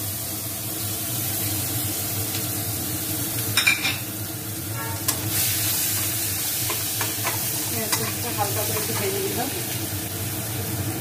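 Chopped onion sizzling in hot mustard oil in a kadai, stirred with a metal spatula that clicks and scrapes against the pan. A cluster of sharper knocks a little under four seconds in is the loudest moment.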